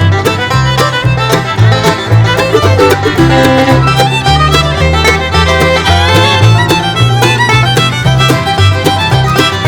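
Bluegrass music with fiddle lead over guitar, banjo and a walking bass line with a steady beat.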